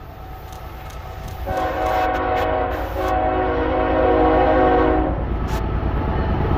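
Canadian Pacific diesel freight locomotive sounding its multi-note chime horn as it approaches: two blasts, the first about a second long and the second about two seconds, starting about a second and a half in. Under the horn, the low rumble of the locomotive grows louder as it nears.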